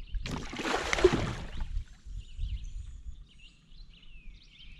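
A rushing, splashy burst of noise lasting about a second and a half, followed by birds chirping faintly over a low outdoor rumble.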